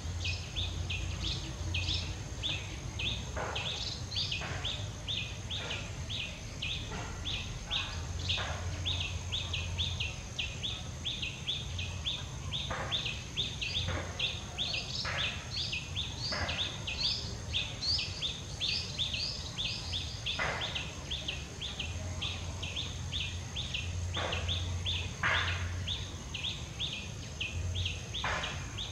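Forest ambience: a rapid, even high-pitched chirping about three times a second over a steady high hum, with brief rustles and crackles of dry leaves and twigs scattered throughout.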